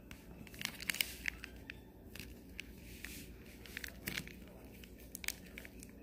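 Plastic zipper vacuum-sealer bag crinkling under the hand as its zipper is pressed shut and the air pressed out, with irregular small crackles and clicks.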